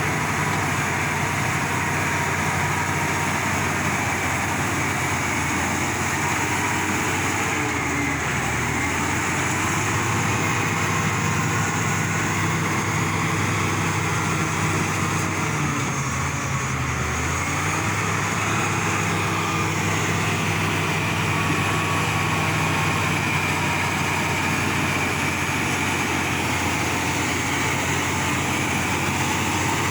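Heavy diesel engine of earth-moving machinery running steadily, its pitch dipping briefly under load about eight seconds in and again about seventeen seconds in.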